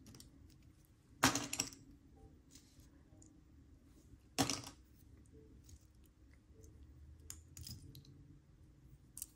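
Small metal and plastic earrings clinking against each other in a pile of jewelry as pieces are picked up and set down: two short clinks, about a second and about four seconds in, with a few faint ticks between.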